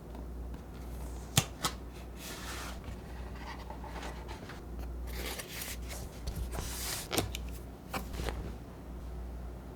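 Keyboard packaging being handled: short rustles of cardboard and wrapping with a few sharp clicks and taps, over a low steady hum.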